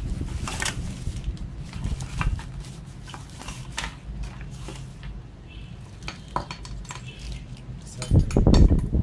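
Loose metal parts clinking and knocking against each other as they are handled, in irregular sharp clicks, with a run of heavier knocks near the end.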